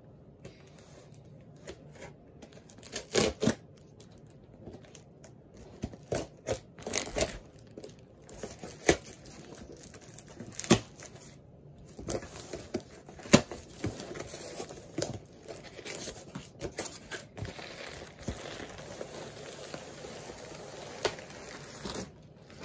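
Hands tearing open a taped cardboard shipping box: packing tape ripping, and cardboard flaps rustling and crinkling. Sharp knocks and scrapes come at irregular moments, and the rustling grows more continuous in the second half.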